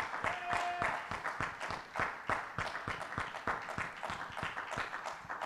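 Applause in a church: the preacher and the congregation clapping, with many quick, irregular claps.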